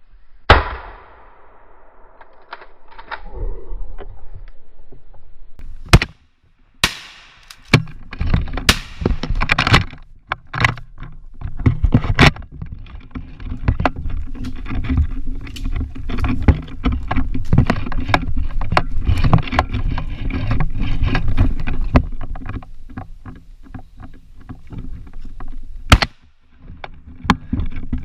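Several loud, sharp shotgun blasts, the loudest about half a second in with an echoing tail, and others near six seconds and near the end. Between the shots there is a steady low rumbling noise.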